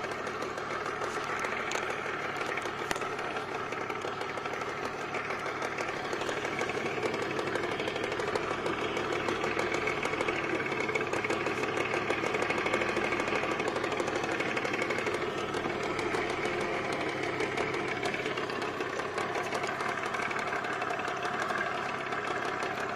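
Boat's outboard motor running steadily at trolling speed, a little louder in the middle.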